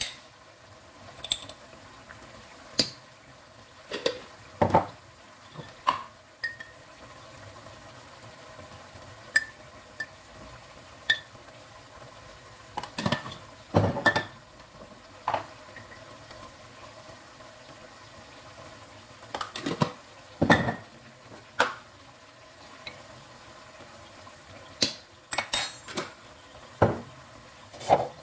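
Spoon and spice containers clinking and knocking against a nonstick cooking pot as spices are added: short sharp knocks, some ringing briefly, in small groups every few seconds, over a faint steady sizzle from the pot of simmering lamb and tomato.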